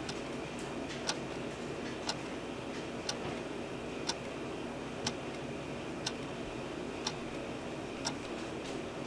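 Wall clock ticking, eight crisp ticks evenly spaced one second apart over a steady background hiss.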